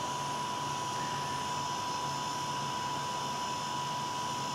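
Steady whirring hum with a faint, constant high-pitched whine, typical of small electronics cooling fans running.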